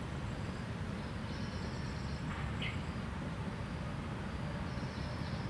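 Outdoor background of a steady low rumble, with a short high bird call about two and a half seconds in and faint high chirping twice.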